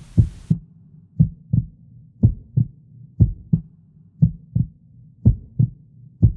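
Heartbeat sound effect: paired lub-dub thumps about once a second over a low steady hum, a suspense cue played before an award winner is announced.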